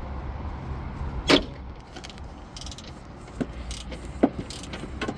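Socket wrench working the strut's upper mount nuts: one sharp metallic clank about a second in, then a run of lighter clicks and knocks of tool against metal.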